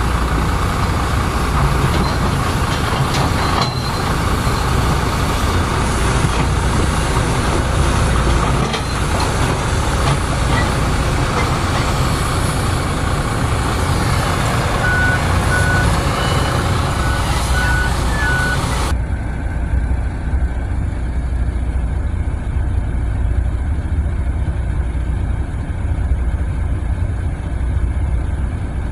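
Heavy diesel machinery of a mining pit, dump trucks and an excavator, running steadily with a deep, loud rumble. A reversing alarm beeps a few times about halfway through. About two-thirds of the way through the sound turns abruptly duller.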